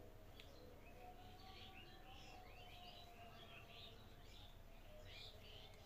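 Near silence with faint bird chirping in the background: a run of short, high chirps repeating throughout.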